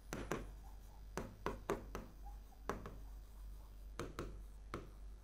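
Stylus writing on the glass screen of an interactive display: a dozen or so irregular light taps and clicks as each letter is drawn.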